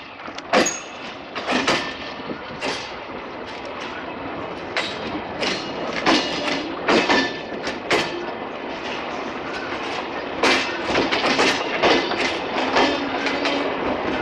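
Silkcity Express passenger coaches rolling slowly over rail joints and points during shunting: the wheels clack loudly at uneven intervals over a steady rumble, with a faint wheel squeal. The sound grows slightly louder as the train draws closer.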